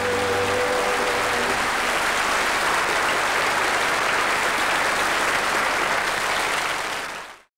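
Audience applauding steadily as the last held sung note and the band's final chord die away about a second and a half in; the applause then fades out quickly near the end.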